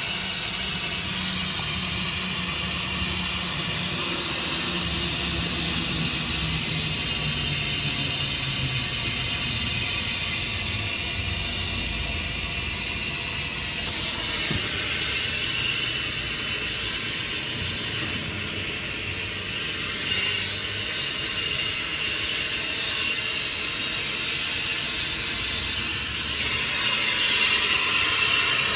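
Steady, loud hiss of rushing air or gas, growing louder near the end.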